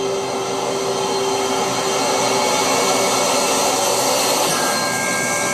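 Loud, steady rushing drone from a horror film's sound design, with held tones inside it, slowly swelling; a higher held tone joins near the end.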